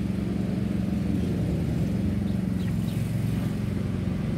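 An engine running steadily, a low even hum that does not rise or fall.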